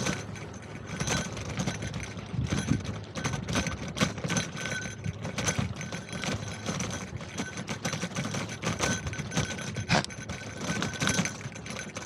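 Bicycle rattling as it rides along: a fast, uneven clatter of small clicks and knocks.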